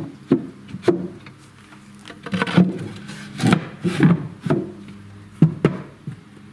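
Irregular knocks and rubbing of wood, MDF booth parts being handled and worked.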